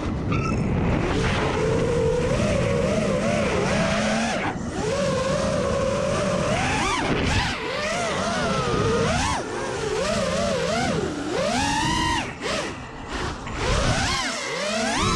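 FPV freestyle quadcopter's brushless motors and propellers whining, the pitch swooping up and down with every change of throttle, over steady wind noise as heard from the onboard camera.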